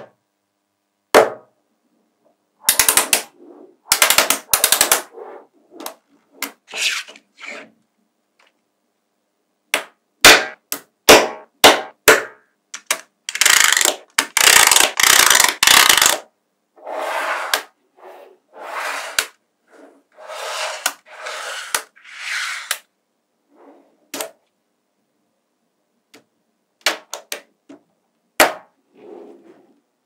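Small magnetic balls clicking and clattering as they snap together, in sharp single clicks and short rattling runs with silent gaps between, the longest, densest clatter around the middle.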